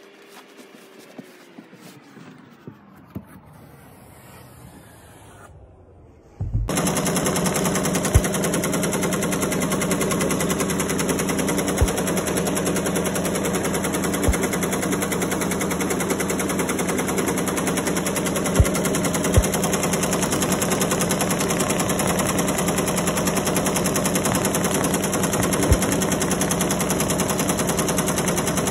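Multi-head Tajima embroidery machine stitching, a loud, fast, steady rattle of needles with a few sharper knocks, starting suddenly about six seconds in. Before it, only faint clicks and rustling as fabric rolls are handled.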